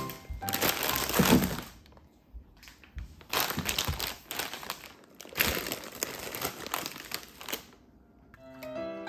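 Plastic produce bags crinkling as they are handled and set down on a countertop, in three bursts of a second or two each. Background music comes in near the end.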